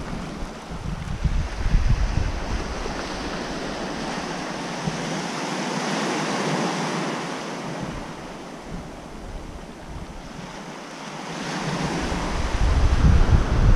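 Small waves breaking on the shore and washing up the beach, swelling twice, about 6 seconds in and again near the end. Wind gusts rumble on the microphone near the start and the end.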